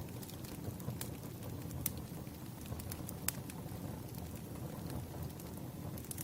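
Burning firewood crackling: a steady low rumble with scattered sharp pops, the strongest about one, two and three seconds in.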